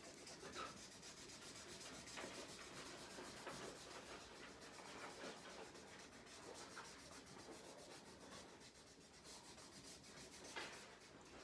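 Faint scratchy rubbing of a felt-tip marker scribbling back and forth on paper in quick repeated strokes, colouring in a thick line.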